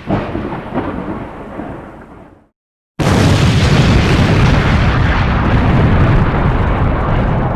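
Loud explosion-like rumble that starts abruptly and fades out over about two and a half seconds. After half a second of dead silence, a second loud, steady rumble cuts in suddenly.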